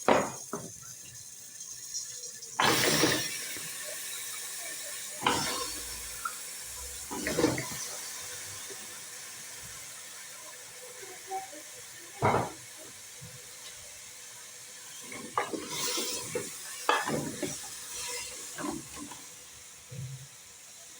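Cut raw potato chunks going into a hot pressure-cooker pot of frying onion, meat and tomato paste: a steady sizzle with irregular thumps and clatters as the pieces land and are moved in the pot.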